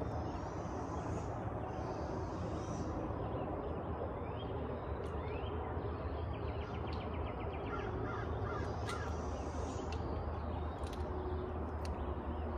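Birds calling outdoors: scattered short chirps, with a rapid trill about halfway through, over a steady low rumble.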